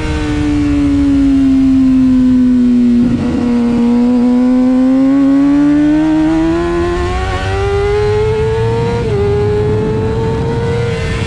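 Kawasaki ZX-6R's inline-four engine on track: the revs fall as the bike slows, then climb steadily under acceleration, with a brief dip for an upshift about nine seconds in. Wind rush sits underneath.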